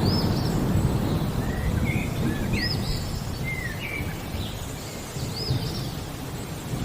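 Low rolling thunder rumble that is strongest at the start and slowly dies away, under a bird chirping short, repeated high notes.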